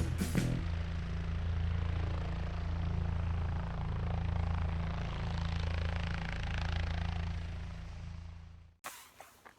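A vehicle engine running steadily with a deep drone, cutting off suddenly near the end.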